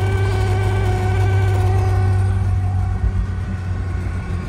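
Mazda 1800's 1.8-litre four-cylinder engine and road noise heard from inside the cabin while cruising at speed, a steady drone. The engine note eases slightly about three seconds in.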